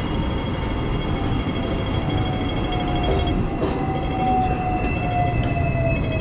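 Street traffic: a vehicle's steady rumble with high whining tones, one of which slowly drops in pitch.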